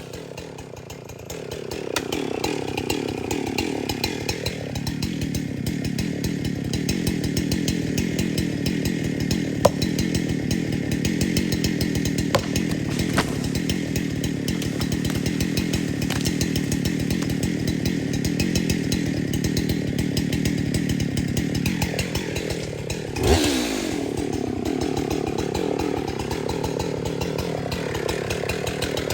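Husqvarna 372XP two-stroke chainsaw, quieter for the first couple of seconds, then speeding up and running steadily at high speed under load through a long cut. About three-quarters of the way through, it gives one short rev before settling back into the cut.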